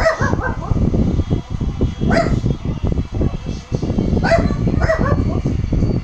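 Short, sharp barks, four of them: three about two seconds apart, the last two close together, over a steady low rumble. They come from a shih tzu and a pet parrot that mimics a dog's bark.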